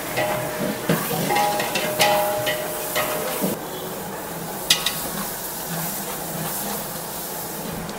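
Long metal ladles stirring and clanking against large cooking pots, with short metallic rings in the first few seconds and a sharp knock near the middle. A steady sizzling hiss of frying runs underneath.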